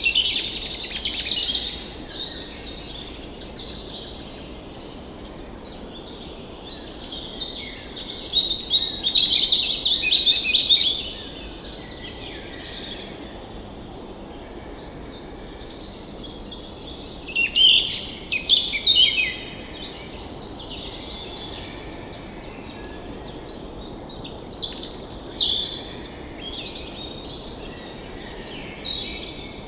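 Songbirds singing and calling in repeated bouts of chirps and warbling phrases, over the faint steady rush of a forest stream.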